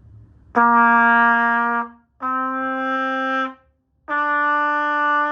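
Trumpet playing three held notes one after another, each a step higher than the last: the beginner's low C, D and E. Each note lasts about a second and a half, with a short break between them, and the last note carries on past the end.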